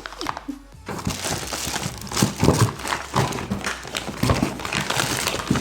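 Soap refill packs rustling and crinkling in their packaging as they are handled, with many small crackles and light knocks from about a second in.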